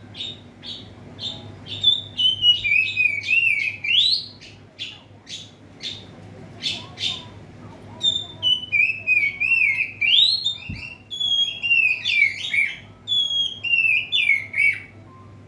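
Oriental magpie-robin (kacer) singing at full voice: a run of short repeated notes, then long rich warbling phrases with sliding whistles and sharp high notes, briefly sparser in the middle. A faint steady low hum lies underneath.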